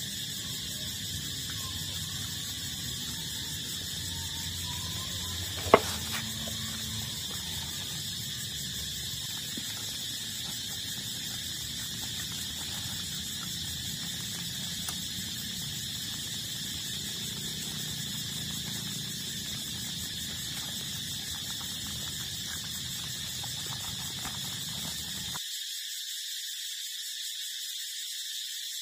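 A steady high-pitched drone that does not change, with one sharp click about six seconds in. A low rumble underneath stops abruptly near the end.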